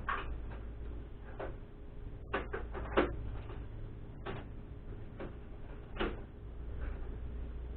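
Hand tools being handled and rummaged through: a scattered series of sharp clinks and knocks, the loudest cluster about three seconds in, over a low steady hum.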